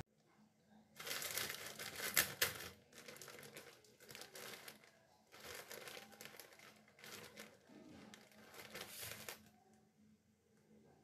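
Plastic bread bag crinkling in irregular bursts as hands rummage in it and draw out slices of sliced bread. The rustling stops near the end.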